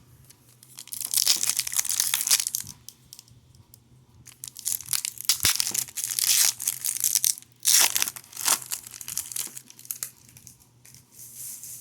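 An Upper Deck ICE hockey card pack's wrapper crinkling and tearing as it is opened, in several bursts of rustling with short pauses between.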